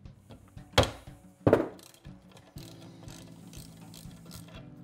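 Two sharp knocks of a soft-faced mallet striking a wrench to break loose the stuck oil filter screen plug in a Triumph 650 crankcase, followed by faint, rapid clicking of a ratchet wrench as the plug is turned out.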